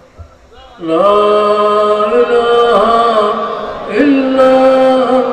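A man's voice through a microphone chanting the durood (salawat on the Prophet) in long held notes. It starts about a second in and moves to a new, higher note just before four seconds in.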